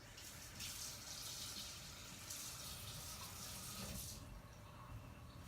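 Water running from a tap for about four seconds, then shut off.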